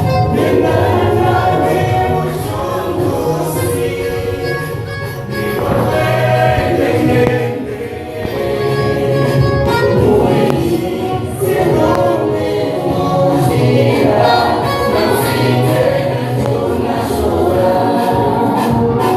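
A church choir singing a gospel song together, with a steady low instrumental accompaniment underneath.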